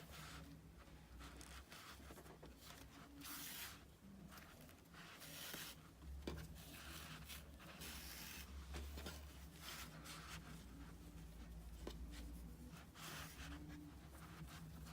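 Faint rustling and rubbing of acrylic yarn being drawn through latch hook rug canvas while whip-stitching its folded edge, a pull every second or two, over a steady low hum.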